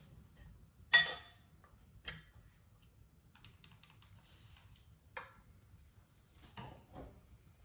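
A metal ladle knocking and scraping against a pot while it stirs a thick herb paste. There is one sharp clack about a second in, then softer scattered clicks and taps.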